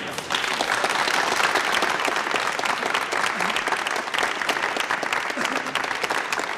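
Audience applauding, a dense clatter of many hands clapping that starts a moment in.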